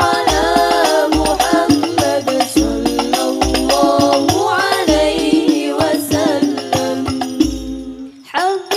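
Sholawat sung by a woman's voice over an al-Banjari ensemble of frame drums (terbang) playing quick interlocking strokes, with deep bass-drum strokes about once a second. The singing breaks off briefly near the end and the voice comes back in.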